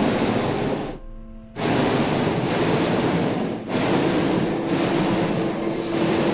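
Hot-air balloon propane burner firing, a loud steady rushing noise, with a short break about a second in before it fires again.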